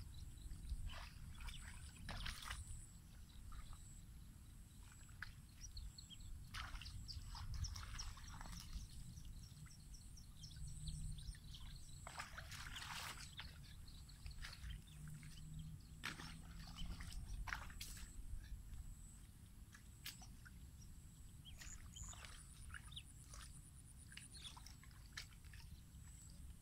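Shallow muddy water sloshing and splashing in short, separate bursts as hands work in it to set a wire-mesh fish trap, with small high chirping calls in the background.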